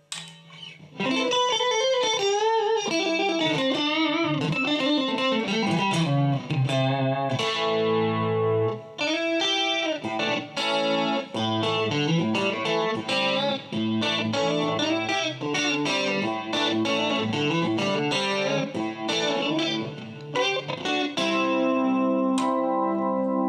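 Electric guitar, a 1985 Matsumoku-built Westone GT, played through an amplifier: a lead line with wavering string bends, then chords and single notes, with a held chord ringing near the end.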